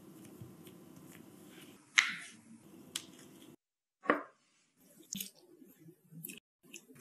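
Close-up food-handling sounds: a low rustle of plastic-gloved fingers pleating a bun of dough, with two sharp clicks. After a brief break comes a single sharp knock, then a few soft scattered taps.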